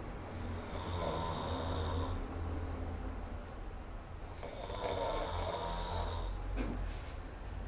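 A man snoring in a heavy drunken sleep: two long, rasping snores about four seconds apart, over a steady low hum.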